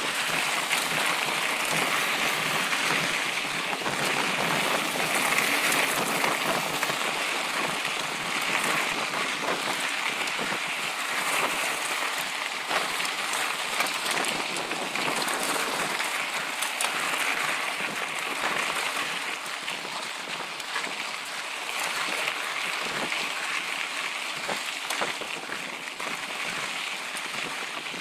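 Mountain bikes rolling along a dirt and gravel trail: a steady crackle of tyres on loose ground, with many small rattling clicks from the bike.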